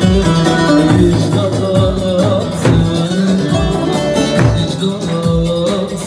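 Turkish folk music: a bağlama (long-necked saz) played over a steady backing beat with a low drum about twice a second.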